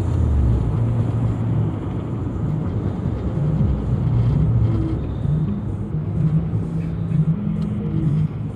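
Car driving at speed on a highway, heard from inside the cabin: a steady low rumble of engine and tyre noise. Faint regular ticks, about two a second, come in about halfway through.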